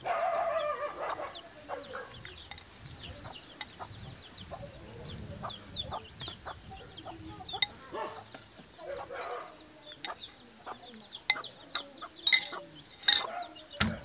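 Chickens clucking, loudest in the first second, with small birds chirping and a steady high hiss behind. A few sharp clicks of a fork against a plate come near the end.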